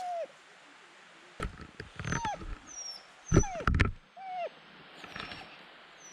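Dog whining, a string of short high whimpers that rise and fall, while it waits for its absent owner to come back. A few heavy low thuds come in the middle.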